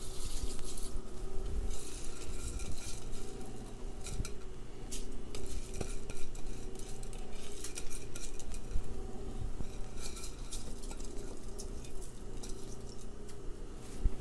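Soaked long-grain rice poured into a wide pan of simmering chicken stock, with scattered light clinks of a utensil against the cookware and the stock simmering.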